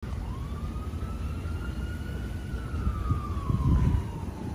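A siren wailing: one long tone that rises and then slowly falls in pitch. Under it, wind rumbles on the microphone, with a heavier buffet about three and a half seconds in.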